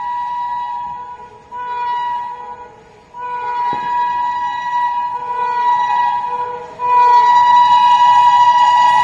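Horn of an approaching Indian Railways electric locomotive, sounded in four long blasts on one steady high note. The last blast starts about seven seconds in, is the loudest and is held on.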